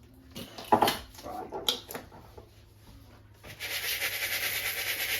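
Crushed cornflakes being stirred in a bowl: a steady dry rasping rustle that starts about three and a half seconds in, after a few light knocks.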